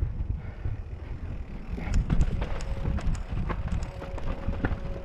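Mountain bike rolling fast down a rocky dirt trail: wind rumble on the helmet microphone over tyre crunch and a run of sharp clicks and rattles from the bike and loose stones, busiest about two seconds in.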